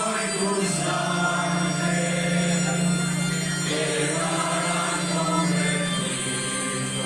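Church singers performing an offertory hymn with music, a low note held steady under the voices and shifting lower about six seconds in.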